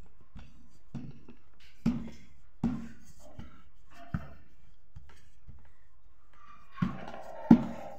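Wooden rolling pin knocking and rolling on a wooden board as croissant dough is rolled out: a series of dull thuds, a little under one a second, the loudest near the end.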